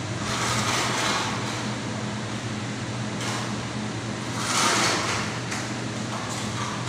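Two broad scraping swishes from floor tiling work, one about a second in and a louder one just past the middle, over a steady low hum.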